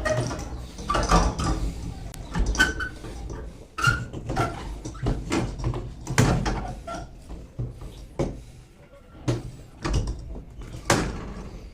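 Irregular knocks, clanks and scraping of metal parts being handled while a refrigerator compressor is fitted into place.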